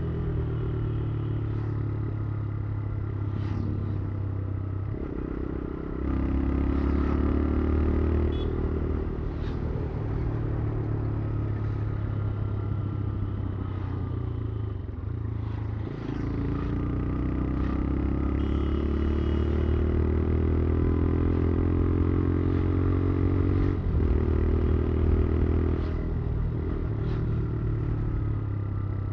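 Motorcycle engine running while riding, its note rising slowly as it accelerates, with sudden shifts in the engine note about six, sixteen and twenty-four seconds in.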